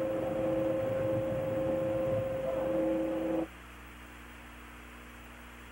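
Broadcast radio-loop background during a gap in the launch commentary: hiss with two steady tones. It cuts off abruptly about three and a half seconds in, leaving a faint low hum.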